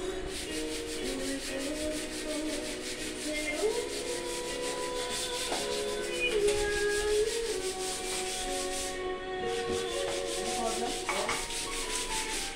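Hand sanding block with sandpaper scraping back and forth over dried putty, in rapid, even strokes of about three a second, with a brief pause about nine seconds in.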